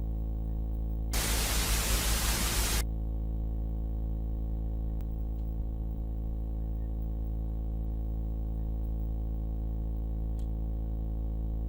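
A steady low drone made of many stacked tones, with a loud burst of white-noise static about a second in that lasts under two seconds and cuts off suddenly.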